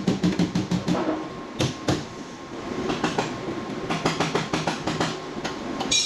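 Metallic clattering: a fast, even run of clicks in the first second, then irregular clinks and taps of metal on metal, typical of tools working on a truck's damaged front bodywork.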